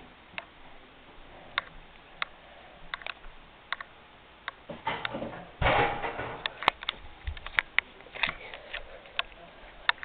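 Scattered light clicks and taps, with a brief louder rustle about six seconds in.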